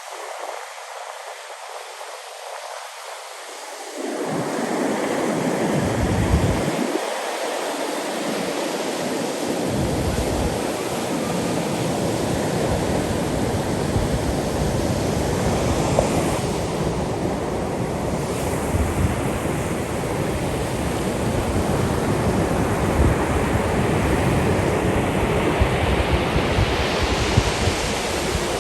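Ocean surf washing on the beach, with wind buffeting the microphone. The noise is thin and high at first, then jumps much louder and fuller about four seconds in, with a gusty low rumble under it.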